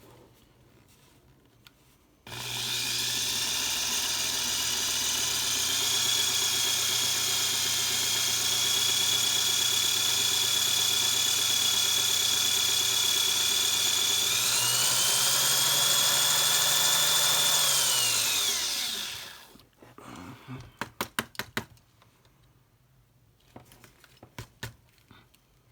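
Power drill with a 9/64-inch bit drilling out the rivet of a Hot Wheels car. It runs with a steady whine, speeds up about two-thirds of the way in, then winds down and stops. A few light clicks and taps follow.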